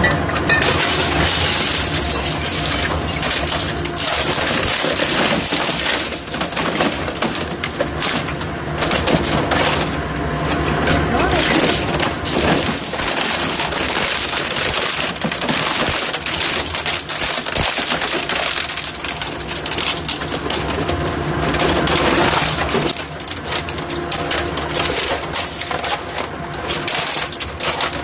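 Double-shaft shredder's cutter blades gripping and tearing apart a white household appliance cabinet: a continuous run of cracking, snapping and crunching plastic and sheet metal over a steady hum.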